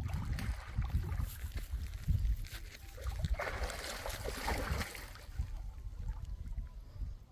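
Wind buffeting the microphone, a fluctuating low rumble throughout, with a short rush of hissing noise about three and a half seconds in.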